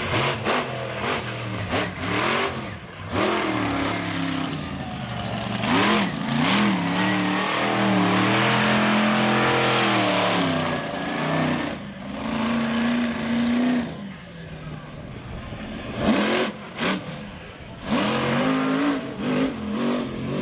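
Avenger monster truck's engine revving hard under full throttle, its pitch swinging up and down through repeated bursts, with a long held high rev in the middle of the stretch as the truck spins in the dirt. A few sharp bangs cut through between the revs.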